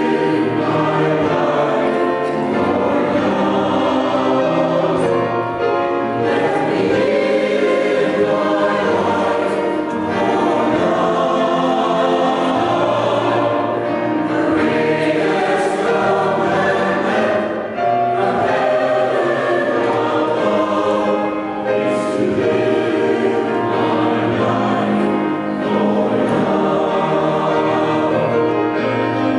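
Mixed-voice church choir singing a choral anthem in parts, with piano accompaniment; held sung notes with short breaks between phrases.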